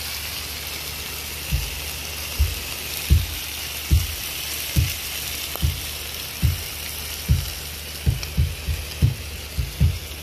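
Chicken and jalapeños sizzling on the hot cast-iron top of a wood-fired pot-belly stove: a steady frying hiss. Low thumps come in about a second and a half in, roughly one a second, and come faster near the end; these are the loudest sounds.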